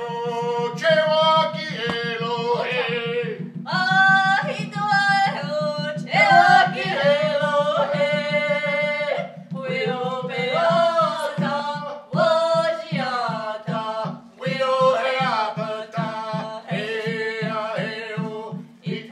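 A woman sings a Native American song while beating a hand-held frame drum with a beater. The beats are quick and steady, about four a second, then slow to about two a second partway through.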